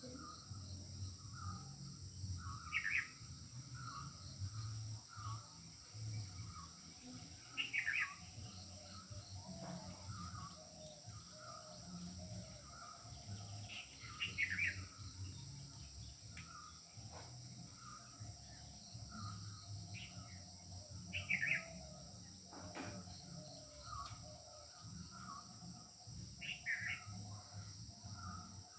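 Birds calling: short chirps repeat a little more than once a second. Five louder, brief trilled calls come every five to seven seconds over a steady high hiss.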